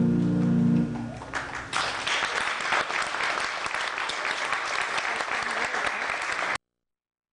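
The last held note of a sung piece ends about a second in, then an audience applauds steadily until the sound cuts off abruptly near the end.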